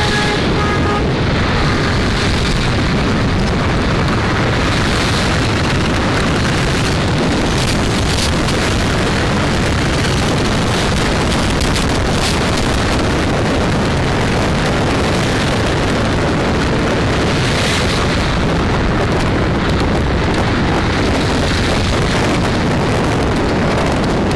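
Loud, steady rushing of wind buffeting the microphone, with road noise from a car driving at speed.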